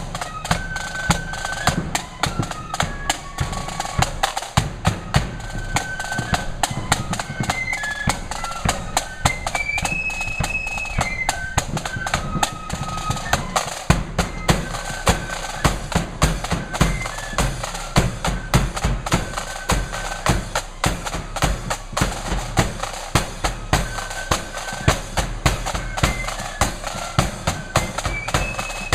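Marching flute band playing a tune: flutes carrying a high melody over snare drum rolls and a steady bass drum beat.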